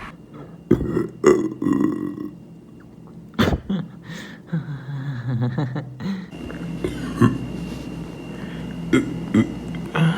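A person burping several times: short burps early on and near the end, and a longer, low, drawn-out belch about four and a half to six seconds in.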